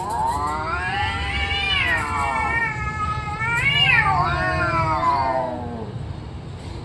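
A cat's long, drawn-out yowl that rises in pitch, wavers, peaks about four seconds in, then slides down and fades near the end: the threatening caterwaul of a cat squaring off for a fight.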